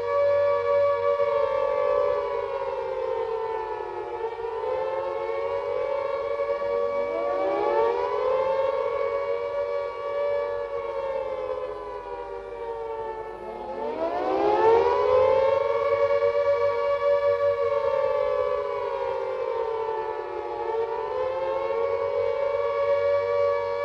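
Several Carter and Gent air-raid sirens wailing together, their pitch slowly falling and rising out of step with one another, with deep dips a few seconds in and again about halfway. This rising-and-falling wail is the air-raid alert warning, not the steady all-clear note.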